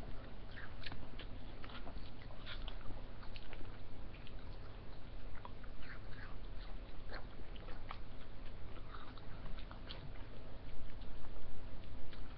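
People biting and eating ice lollies: many small scattered clicks and crunches, over a steady low hum.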